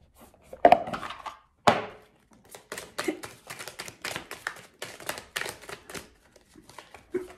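A quick run of sharp taps and clacks on a hard surface, about three to five a second, after two louder knocks about a second in.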